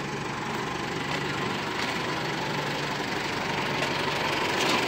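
Cable reel machine's engine running steadily.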